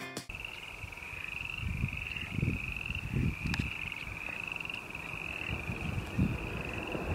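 A chorus of frogs calling from a wetland: short trills repeated one after another without a break. An irregular low rumble runs underneath.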